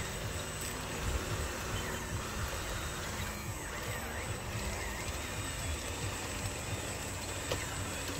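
Small electric motors and gearboxes of radio-controlled toy construction vehicles running steadily as a crawler bulldozer and a dump truck drive over dirt.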